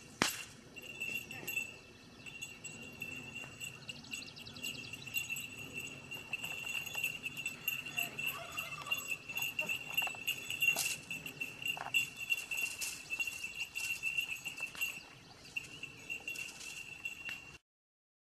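Small bells jingling continuously as a herd of dairy goats walks, with a sharp knock right at the start. The sound cuts off shortly before the end.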